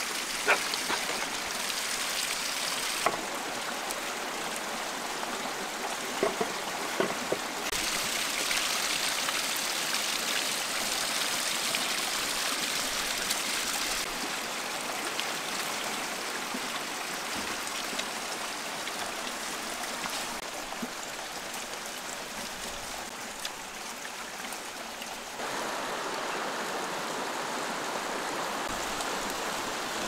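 Steady rushing noise of running water, its level shifting abruptly every few seconds, with a few light clicks in the first seconds.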